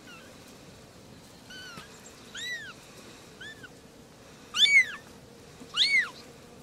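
Very young kittens mewing, a string of about six thin, high-pitched mews, each rising and falling in pitch. The two loudest come close together about two-thirds of the way through.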